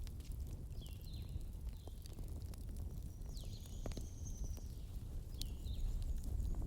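Small birds chirping in short repeated calls, with one longer call about three to four seconds in, over a steady low rumble and occasional sharp crackles of a wood fire.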